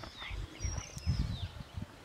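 A few short bird chirps gliding downward in pitch, over irregular low thuds.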